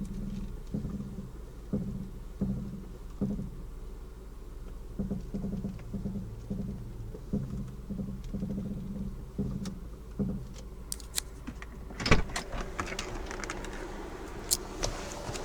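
VW Passat B5 front suspension creaking over and over, about one to two short creaks a second for the first ten seconds, then a loud knock about twelve seconds in followed by clatter. The creak is the sign of a worn lower load-bearing arm and rear upper arm, which were replaced to cure it.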